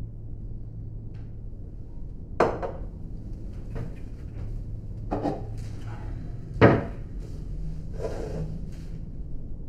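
Kitchen cupboard being opened and closed and crockery being handled on the counter: five separate knocks and clunks, spaced about a second and a half apart, the loudest about two-thirds of the way through, over a steady low hum.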